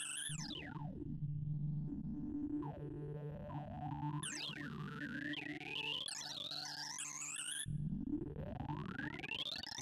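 Synthesized sorting-algorithm sonification: electronic tones whose pitch follows the values of the array elements being compared and swapped, gliding up and down in quick sweeps as an Introspective Circle Sort works through 1,024 numbers. About eight seconds in, the tones change to one steady rising sweep as the markers run through the now-sorted array.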